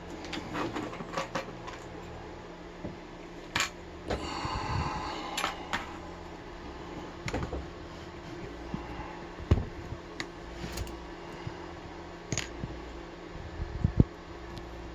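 Scattered light clicks and taps of a padlock and small tools being handled, with a short scraping rustle about four seconds in and a low steady hum underneath.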